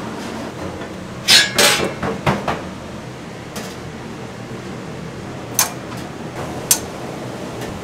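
Metal clattering as the lid of a stainless steel food pan is handled, a quick run of loud clanks about a second in, then two single sharp clicks of metal tongs against the grill grate, over a steady background hum.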